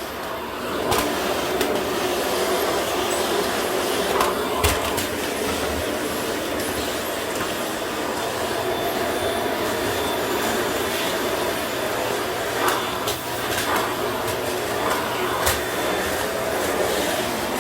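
Vacuum cleaner running steadily, coming up about a second in, with a few sharp knocks along the way.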